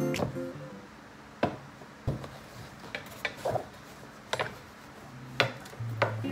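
Scattered light clicks and taps, about seven over six seconds, as a lampshade is handled and its thin metal wire frame is taken out and fitted back in.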